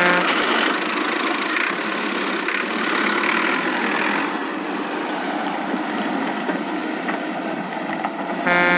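Cartoon vehicle engine sound effect running steadily, a noisy engine-like sound with no deep bass. Near the end a horn-like steady tone starts.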